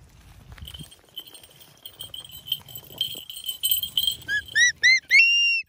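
Small falconry bells keep up a high, pulsing ringing. Then a bird gives a run of short high calls that rise and fall, coming faster, and ends on one longer held note that cuts off abruptly.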